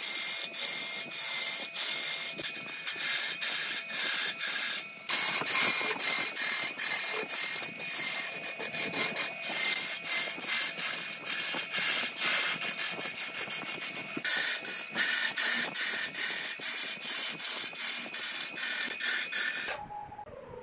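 A gouge roughing down a spinning wooden blank on a lathe: a fast, even knocking, about three or four strikes a second, over cutting noise and a steady high tone. It stops abruptly just before the end.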